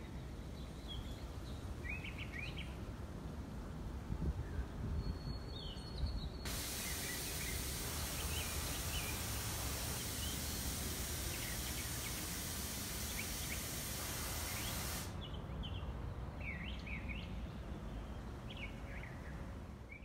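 Songbirds chirping and calling in short, scattered phrases over a steady low background rumble. About six seconds in, a loud even hiss covers the high range, then cuts off sharply near fifteen seconds while the chirps go on.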